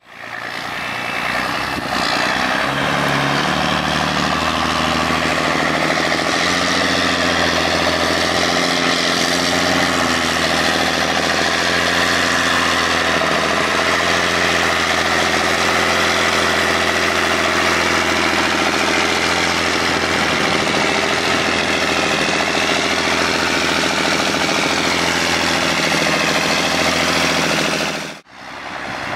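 John Deere 8100 tractor's six-cylinder diesel engine working steadily while pushing grass silage with a front silage fork. The engine note rises a few seconds in, then holds steady. The sound breaks off abruptly about a second before the end.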